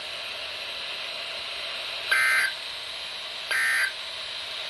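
NOAA Weather Radio EAS end-of-message data bursts: short, buzzy bursts of two-tone digital data, about a second and a half apart, over steady radio static. Two full bursts sound, and a third begins near the end; they are the signal that closes the alert test and resets tone-activated receivers.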